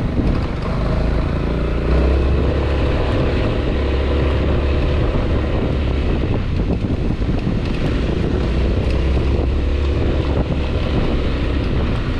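Honda ADV 350 scooter's single-cylinder engine running at a steady cruising speed, with wind buffeting the microphone.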